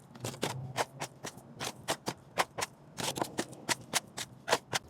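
Quick-setting cement being stirred by hand, the mixing tool scraping and clicking against the container in quick, uneven strokes, about four a second, as the patch mix is worked toward a stiff, workable consistency.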